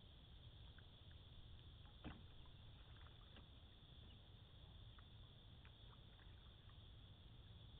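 Faint canoe paddling: small water ticks and drips, with one sharper knock of paddle on hull about two seconds in, over a steady low rumble.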